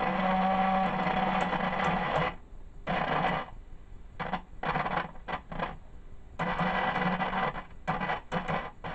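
Ekco MPT333 transistor radio's loudspeaker output cutting in and out abruptly. A burst of about two seconds is followed by a string of shorter ones and another longer burst near the end, with a steady low hum under them. These are the set's intermittent 'interesting noises', the fault it is being repaired for.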